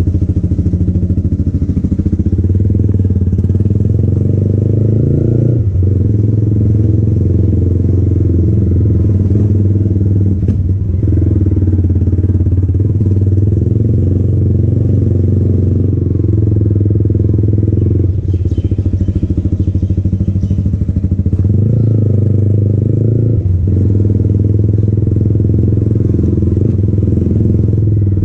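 Yamaha MT-15's single-cylinder engine breathing through an aftermarket Akrapovic exhaust, running at low road speed. The throttle eases off and picks up again a few times, the engine note dipping briefly and then rising.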